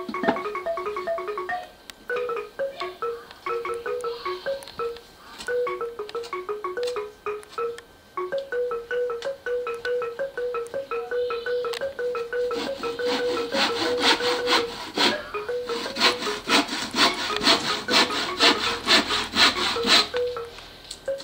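Xylophone-like tuned percussion playing a quick, repeating melody of short notes. From a little past halfway it is joined, and briefly drowned, by a handsaw cutting wood in rapid strokes, about three to four a second.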